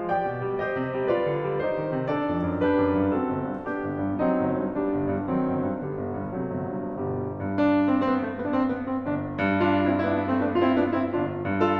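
Background piano music, a steady flow of notes over low bass notes, growing brighter and busier about seven and a half seconds in.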